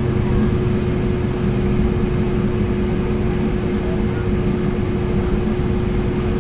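Boeing 757-200 airliner heard from inside the passenger cabin in flight: a steady engine and airflow roar with a constant hum running through it.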